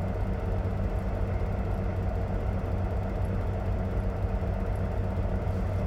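Truck engine running steadily with a low, even drone.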